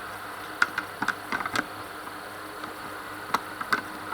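Light clicks and taps of laptop plastic and hinge parts being handled and fitted: a cluster of short clicks about half a second to a second and a half in, then a few more after three seconds, over a faint steady hum.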